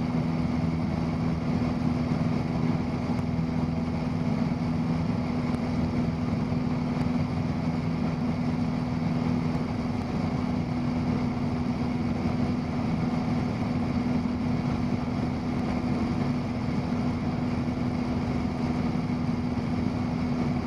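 Cessna 172's piston engine and propeller droning steadily inside the cabin under climb power, one strong steady hum with a lower pulsing tone beneath.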